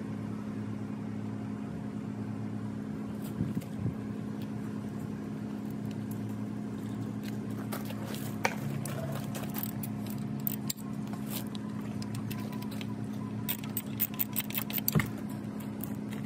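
Light metallic clicks and clinks of bolts and tools being handled on an outboard's lower unit, scattered through the second half and bunched together near the end. A steady low hum runs underneath throughout.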